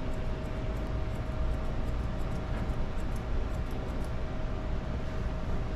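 Steady low machine hum with one constant tone, under faint, scattered snips of grooming shears trimming a dog's coat.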